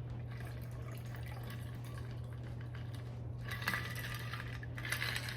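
Cocktail liquid poured or splashing into a glass for about a second, beginning about three and a half seconds in, then a clink of glassware or metal right at the end, over a steady low hum.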